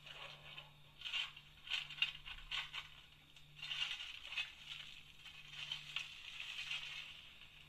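H0-gauge Märklin model steam locomotive and passenger cars running on track, with irregular clicking and rattling over a faint hum that comes and goes.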